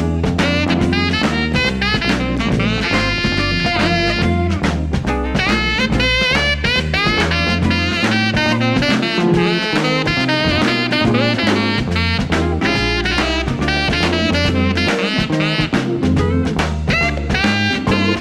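Jazz music in a swing style, with horns and a drum kit keeping a steady beat.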